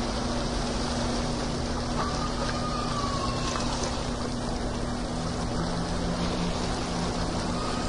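Steady rushing water noise, like an underwater ambience, with a constant low hum underneath.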